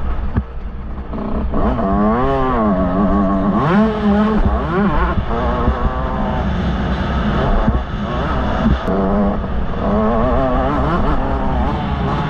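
Yamaha YZ125 two-stroke motocross bike engine revving up and down while riding, its pitch rising and falling repeatedly over a constant low rumble.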